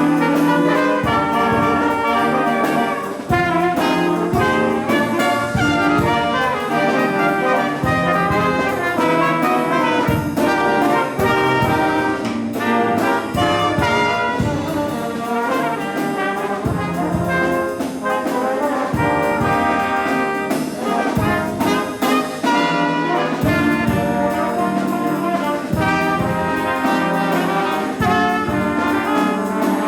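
A high school jazz band playing live, with brass (trumpets and trombones) carrying the melody over steady drums.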